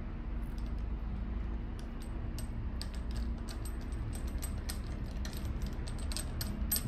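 Small metal parts clicking and clinking as a clutch lever and its handlebar clamp are handled and fitted, the clicks growing more frequent after the first few seconds, over a steady low hum.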